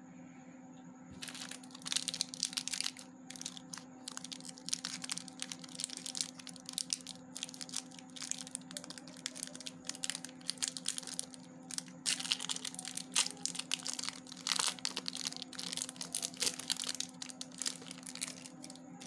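Candy bar wrapper crinkling as it is handled and peeled open, its foil inner wrap crackling. It starts about a second in and goes on in quick runs of crackles with brief pauses.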